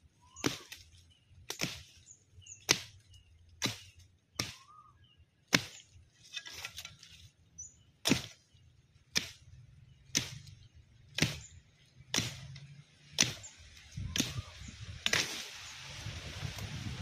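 Machete chopping into a sapling's wood, about fifteen sharp strokes at roughly one a second. Near the end, leaves and branches rustle loudly.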